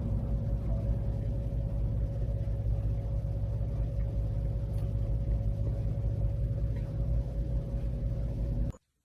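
Steady low mechanical rumble with a faint constant hum above it, cutting off abruptly near the end.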